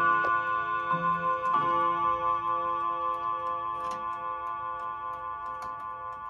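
Mauthe bim-bam mantel clock striking on its three gong rods, the final strokes falling about a second and a second and a half in. The rods' ringing then fades slowly while the clock ticks on.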